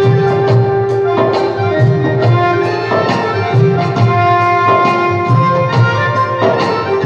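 Instrumental Indian devotional tune: a melody instrument holds long, steady notes over a steady rhythm of Indian hand-drum strokes with deep bass thuds.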